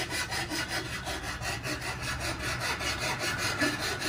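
A thin hand-held saw blade sawing through a green bamboo pole in even back-and-forth strokes, a steady rhythmic scraping.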